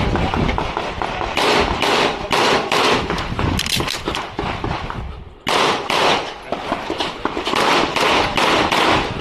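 Glock pistol fired in quick strings of shots, with a brief pause just after five seconds in before the shooting picks up again. This is a timed USPSA stage being shot.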